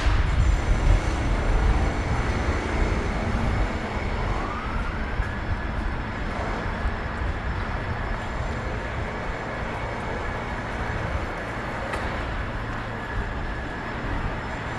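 City street traffic: a heavy low rumble of passing vehicles, loudest in the first few seconds, with a thin high whine that rises about four seconds in and then holds steady.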